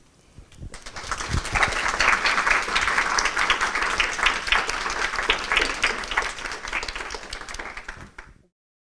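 Audience applauding at the end of a talk: the clapping starts about a second in, swells, then cuts off suddenly near the end.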